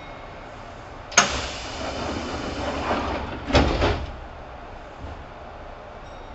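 Passenger doors of a Kintetsu 2800 series train working at a station stop: a sharp clunk about a second in, a rush of air, then a second heavy thump about two and a half seconds later.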